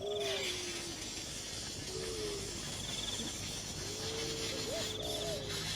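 Young birds giving drawn-out, wavering begging calls in a few bouts, with an insect trilling in short bursts and a steady hiss behind.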